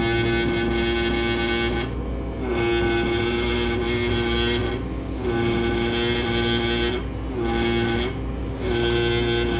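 Pneumatic air scribe buzzing as it chips rock matrix away from fossil turtle bone. It runs in about five bursts of one to two seconds with short breaks, and its pitch dips as it starts and stops. A steady low hum lies underneath.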